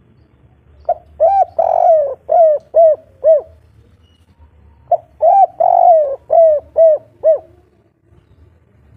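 Spotted dove cooing its 'kuk 3' song twice, a few seconds apart. Each phrase is a short opening note, a longer drawn-out coo, then three short arched 'kuk' notes.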